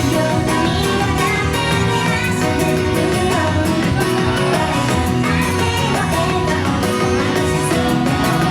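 Japanese idol pop song with singing over a full backing track, loud and continuous.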